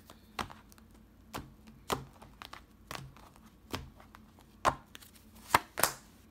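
Tarot cards being shuffled by hand and a card laid down on the table: a scatter of separate sharp card snaps and flicks, irregular at about two a second, the loudest two in the last couple of seconds.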